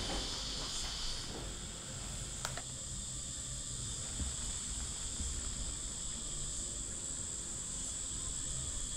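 Steady high-pitched insect chorus; a lower-pitched part of it drops away about a second in.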